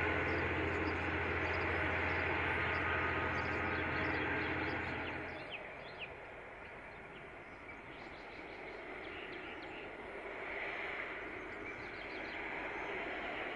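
V/Line N class diesel locomotive and carriages running by with a steady low engine hum, cutting off sharply about five seconds in. Then quieter outdoor air with birds chirping, and a low rumble slowly building near the end as the next train approaches.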